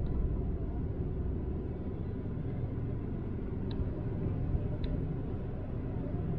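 Steady low rumble heard inside a stopped car's cabin, with two faint short ticks about a second apart near the middle.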